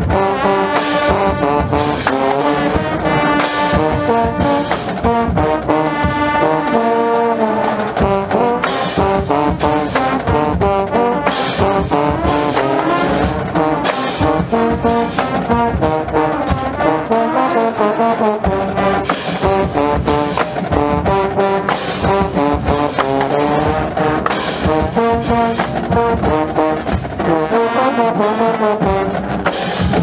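Marching band trombone section playing a loud brass fanfare, the player's own trombone closest and loudest, with sustained chords changing step by step and sharp percussion hits running through it.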